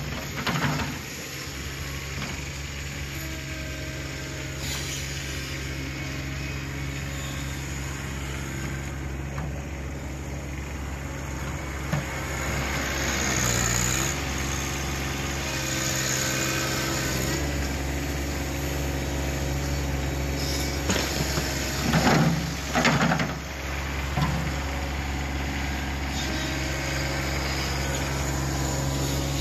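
John Deere 1026R compact tractor's three-cylinder Yanmar diesel running under load while it pushes snow with its front loader. The engine grows louder partway through as the tractor comes close, dips and recovers in pitch briefly, and there are two short loud knocks a little past the middle.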